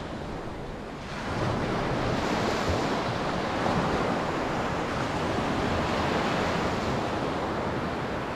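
Sea surf washing onto a beach, with wind buffeting the microphone; the wash swells about a second in and then holds steady.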